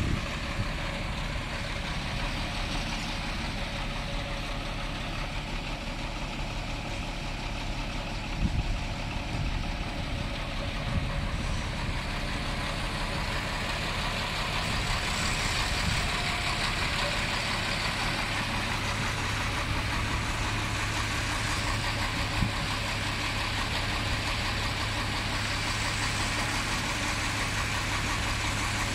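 Diesel engine of a Link-Belt tracked excavator idling steadily, with a few brief knocks.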